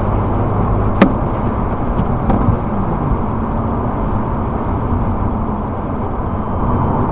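Steady road and engine noise inside a car travelling at motorway speed, recorded by a dashcam, with a single sharp click about a second in.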